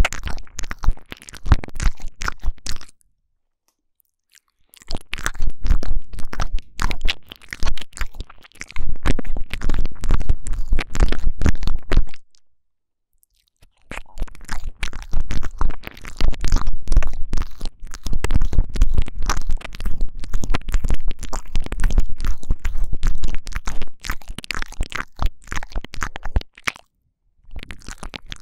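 Intense wet mouth sounds right against a microphone, ASMR 'ear eating': dense tongue clicks, licks and smacks with a deep rumble under them. They come in long bursts, broken by three short silences.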